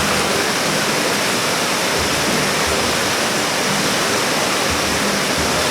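Mountain river rushing over rocks: a loud, steady roar of fast water.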